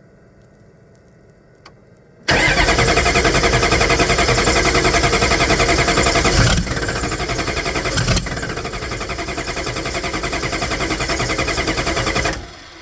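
6.5-litre V8 diesel engine, its intake manifold off, cranked on the starter for about ten seconds with a fast, even pulsing, without catching, then the starter is released. A faint click comes just before the cranking begins.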